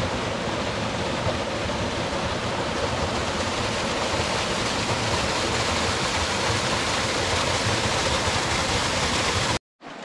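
Rushing white water of the Ehrbach gorge's stream cascading close by: a steady, loud rush that cuts off abruptly near the end.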